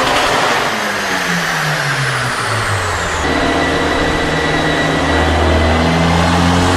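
Performance car engine whose revs drop steadily for about three seconds from a high note, then settle into a low, steady rumble. A thin high whistle winds down as the revs fall.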